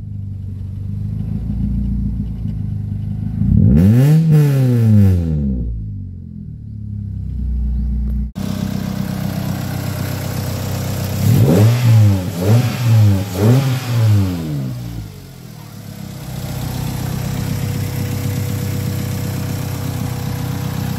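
Ford Lynx four-cylinder engine running again after its crank-no-start fault was cured, revved up and back down once about four seconds in. After a cut, the throttle is blipped four times in quick succession, and the engine settles back to a steady idle.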